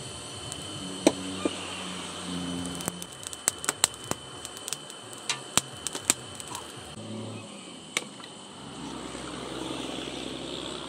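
Charcoal forge fire crackling, with sharp irregular pops and snaps as sparks fly from the burning coals, over a steady high insect-like drone.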